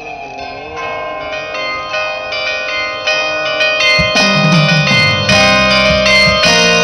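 Carillon of bronze bells played as a quick run of ringing notes that grows louder, with deep low notes coming in about four seconds in.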